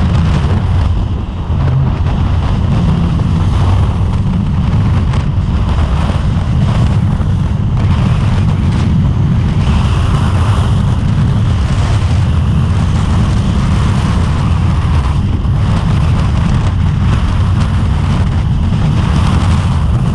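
Honda VFR800's V4 engine running at a steady highway cruise, mixed with heavy wind rush buffeting the microphone.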